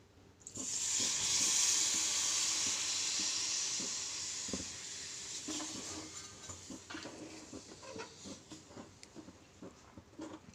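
Ginger and turmeric juice poured into hot melted jaggery in a pan. It hisses and sizzles at once, then dies down over the next several seconds.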